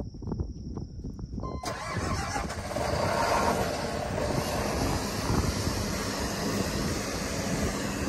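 New Holland CR8.90 combine's diesel engine starting about a second and a half in. It comes up to speed over the next second or so and settles into a steady, loud run.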